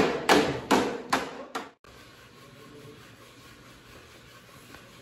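A hammer striking a wooden block against a wooden staircase frame, about five blows at two to three a second, getting fainter. It cuts off suddenly just under two seconds in, leaving quiet room tone.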